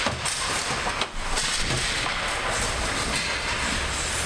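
Close-range ice hockey play: a steady scraping hiss of skates on the ice, with a sharp stick-or-puck knock about a second in.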